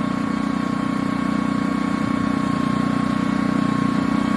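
Small portable petrol generator, a 2500-watt, 60-volt range extender for charging an electric vehicle, running steadily at constant speed. A steady high whine sits over its hum.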